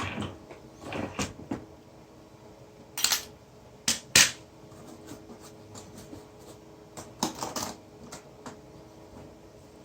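Scattered knocks, clicks and clatter of hard objects being handled, the two sharpest about three and four seconds in, over a faint steady hum.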